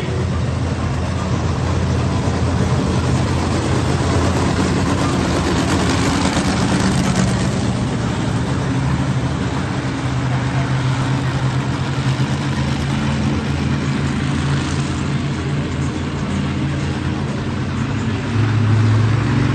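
Monster truck engine running loud and steady, growing louder near the end.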